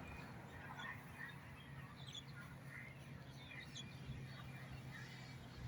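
Quiet background with a low steady hum and scattered faint, short high chirps.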